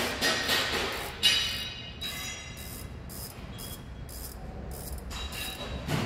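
Hand ratchet wrench clicking in short repeated strokes, about two or three a second, as a bolt is worked.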